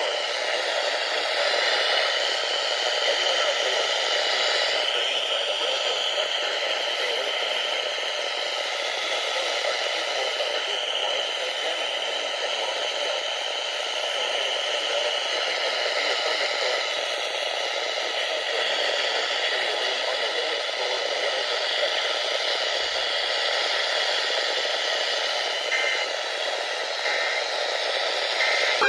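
Steady radio static: an even hiss of noise from a receiver with no voice or alert tone on the channel.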